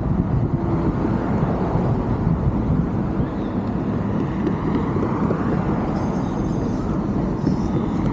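Steady low road and wind noise from a car driving along a street.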